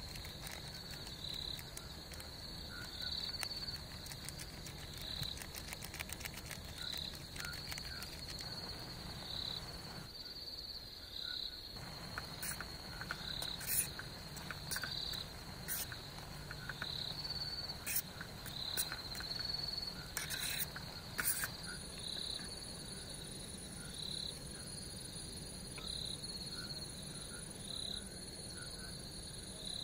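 Crickets chirping at night: a steady high trill, with a louder chirp every one and a half to two seconds. A few sharp clicks come about halfway through.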